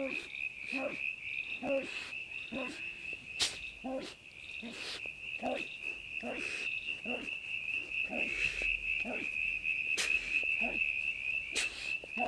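Night chorus: insects chirring steadily at a high pitch, with a low croak repeating every half second or so, and a few sharp cracks.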